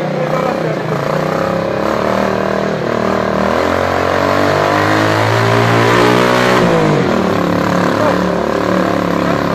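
A vehicle engine revving: its pitch climbs steadily over a couple of seconds, then drops sharply about two-thirds of the way through, over a continuous engine drone.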